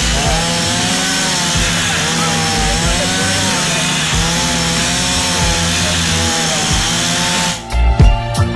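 Small petrol-engine power tool, such as a chainsaw, running steadily at high speed over background music, cutting off near the end.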